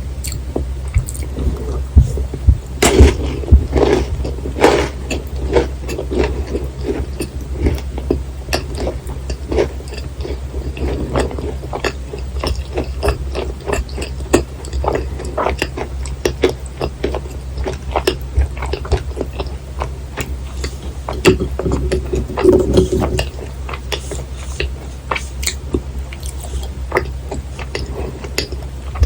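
Close-miked chewing of a thick-filled macaron: a dense run of sticky, wet mouth clicks. Louder bites come a few seconds in and again about two-thirds of the way through.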